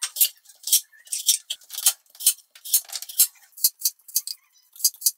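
A knife working on food in quick short strokes, a crisp scraping or cutting sound about two or three times a second.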